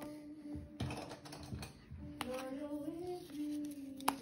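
A voice singing a slow tune in held notes that step up and down, with a few sharp clicks alongside.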